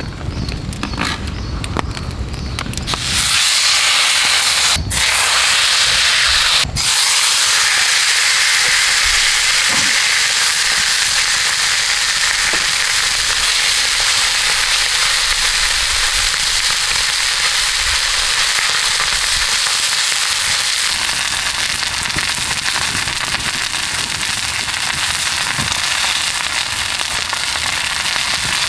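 Thick steak sizzling in hot oil in an iron frying pan over a campfire: a loud hiss breaks out suddenly about three seconds in as the meat goes into the pan, then keeps up a steady spitting, crackling sizzle.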